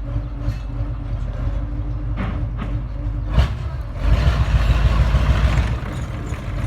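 Engine of a tracked all-terrain vehicle running steadily, with a few short clanks or hisses about two to three and a half seconds in; about four seconds in it gets noticeably louder and rougher as the engine is revved up.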